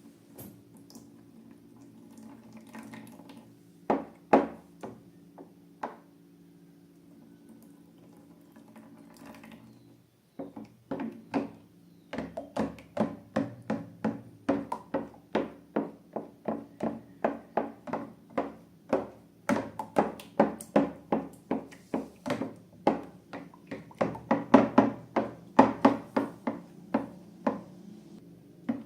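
Wet slime being worked by hand: short sticky squelches and pops, a few at first, then a quick run of about two or three a second from about ten seconds in, over a steady low hum.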